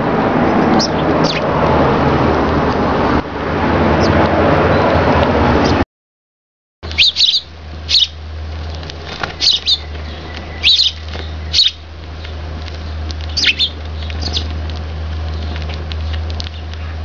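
Eurasian tree sparrows chirping: about eight short, sharp chirps spread over ten seconds, over a steady low hum. Before this, after a sudden break, a steady rushing noise with a couple of faint chirps in it.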